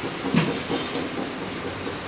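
Steady hiss and rumble of kitchen background noise around a large pot of boiled noodles, with a single short knock about half a second in.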